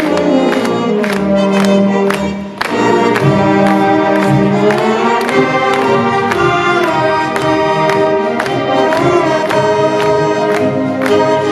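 Symphonic band of woodwinds and brass playing a march, with a steady beat about twice a second. The music drops away briefly about two and a half seconds in, then comes back in full.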